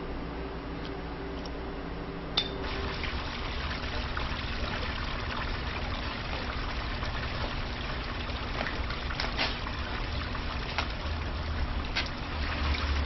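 A sharp clink about two seconds in, then a steady, water-like hiss that swells slightly and carries on, with a low hum underneath.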